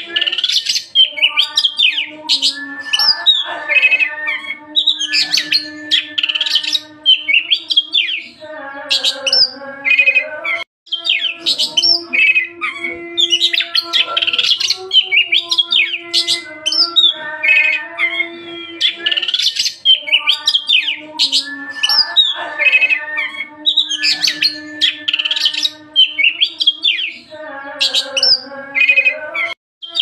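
Oriental magpie-robin (kacer) singing vigorously and without pause: a stream of rapid, varied high chirps and trills over lower, held whistled notes. The sound breaks off for an instant twice.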